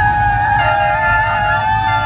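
Multi-tone horn sounding a steady chord of several pitches held together, over a low engine rumble.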